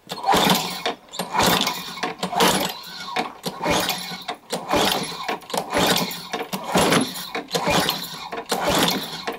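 Craftsman 6.75 HP Tecumseh lawnmower engine being pull-started again and again, about one pull a second, turning over with each yank of the recoil cord but not catching. The mower has its blade removed and does not start.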